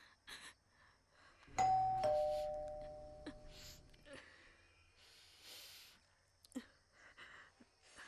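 Two-tone ding-dong doorbell chime about a second and a half in: a higher note, then a lower one half a second later, both fading away over the next couple of seconds.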